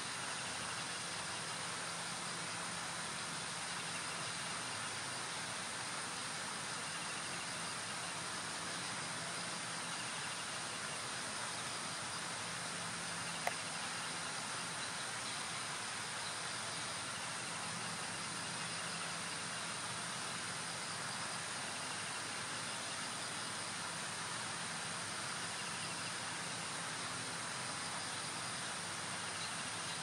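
Steady outdoor ambience by a small stream: an even hiss with a constant high-pitched insect drone over it, and one short click about halfway through. The kingfisher makes no call.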